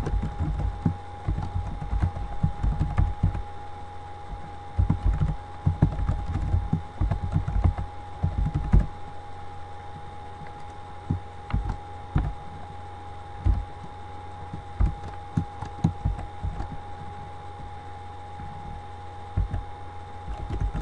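Typing on a computer keyboard in irregular runs of keystrokes, dense at first and sparser in the second half, over a steady electrical hum.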